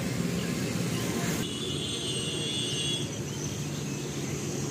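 A vehicle engine running steadily, a low hum with nothing sudden in it. The higher hiss drops away abruptly about a second and a half in.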